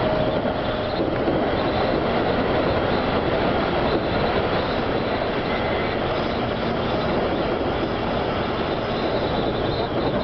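Seibu 101-series electric train running along the line, a steady noise of wheels on rail and traction motors heard from on board.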